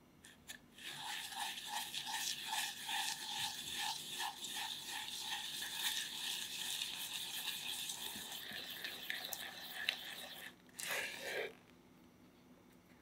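Egg yolks, sugar and vanilla bean paste being stirred briskly in a small saucepan: a rhythmic scraping swish of the mixing utensil against the pan, about three strokes a second. It stops shortly before the end after a brief last flurry.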